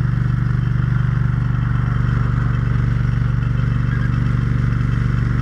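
A brush truck's fire pump and its engine running steadily while pumping, a loud, even low hum.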